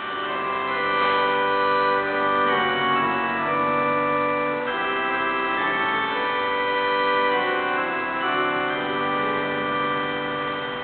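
Church organ playing slow, held chords that change every few seconds.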